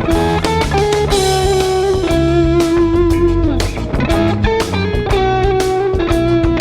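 Counterfeit Fender electric guitar playing a lead line of held single notes with string bends and vibrato, over a backing track of drums and bass.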